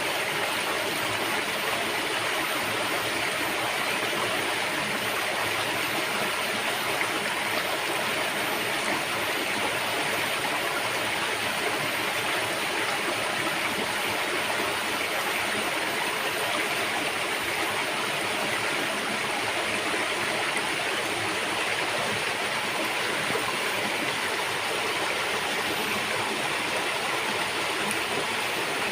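River water rushing and splashing over rocks, a steady full rush with no pauses.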